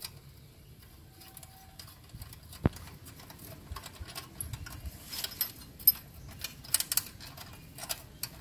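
Metallic clicks and rattles of a motorcycle's stock exhaust muffler being twisted and worked off the link pipe at its loosened clamped joint: a single sharp click near three seconds in, then a run of quicker clicks in the second half.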